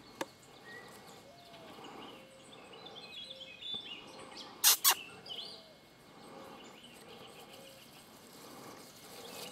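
Birds calling: a short note repeated about once a second, with a brief run of higher chirping in the middle. Two sharp clicks in quick succession a little past the middle are the loudest sound.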